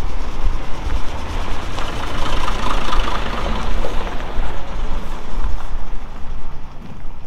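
Kenworth truck's diesel engine running as it drives past at low revs, with no horn: a heavy, steady rumble that swells about three seconds in and eases off near the end.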